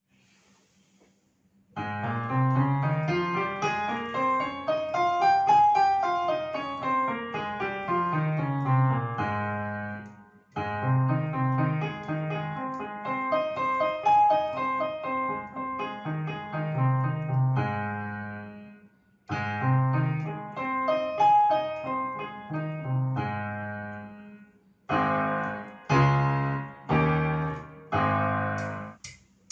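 Piano music played in several phrases separated by short breaks. The first phrase has a run climbing up and falling back, and near the end come a few separate struck chords.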